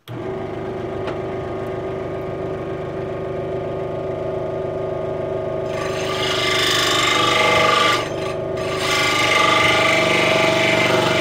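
A Central Machinery 16-inch scroll saw switches on and runs with a steady hum. About six seconds in, the blade starts cutting into a strip of wood, adding a rasping sawing sound that breaks off briefly around eight seconds and then resumes. The wood has to be pushed hard through the cut, which the owner puts down to a very dull blade or too little blade tension.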